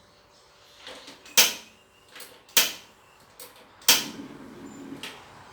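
Three loud, sharp knocks about a second and a quarter apart, with a few fainter taps between them: cookware and utensils being handled and set down.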